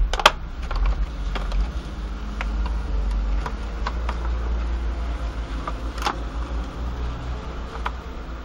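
Stiff plastic packaging crackling and clicking as a knife is worked out of its sleeve, with a sharp crack just after the start and another about six seconds in. A steady low rumble runs underneath.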